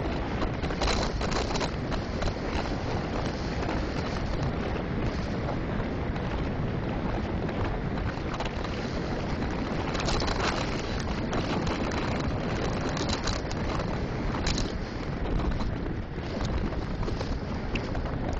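Wind buffeting the microphone of a camera on a bicycle descending a steep grade at speed: a steady rushing noise with irregular stronger gusts.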